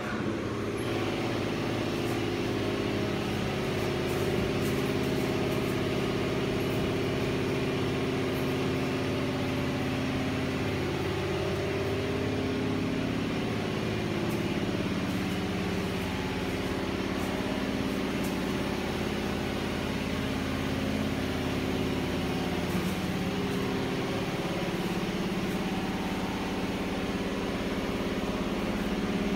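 Steady mechanical drone of a running motor and fan, a low hum that wavers slightly in pitch over a constant rushing noise.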